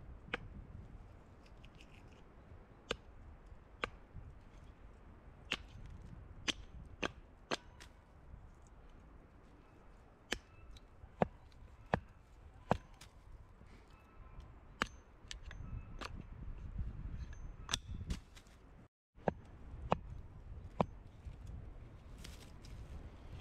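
Axe chopping wood: sharp single strikes at irregular spacing, roughly a second apart with pauses between runs, over a low steady rumble.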